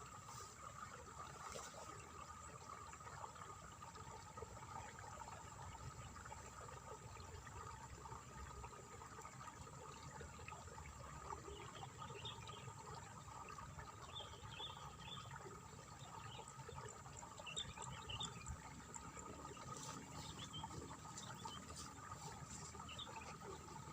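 Faint, steady trickling and splashing of water in a rice paddy, with a steady drone of insects. A few short, high chirps come in the middle.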